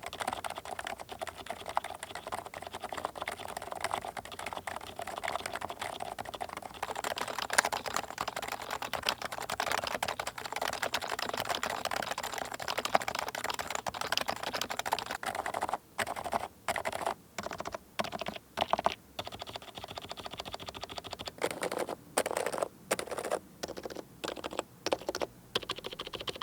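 Typing on a Leopold FC660C with Topre electrostatic-capacitive switches, rebuilt and put back into its case. The keystrokes run fast and steadily for the first half, then come in short bursts separated by brief pauses.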